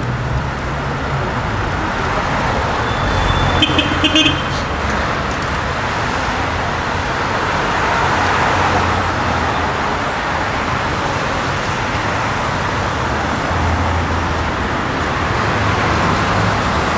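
City street traffic: passing vehicles with a steady hum and road noise that swells and fades. A brief, sharp, high-pitched clatter sounds about three to four seconds in.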